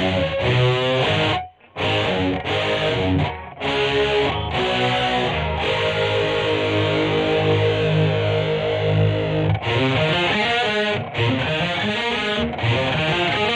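Greco EG-550 electric guitar played through a Peavey Vypyr VIP 2 modelling amp with a distorted patch: short chord riffs with brief stops, and one long chord held for about four seconds in the middle.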